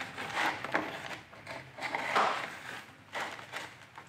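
Small paint roller worked over a metal fender panel and through a paint tray, giving several soft, uneven rubbing strokes.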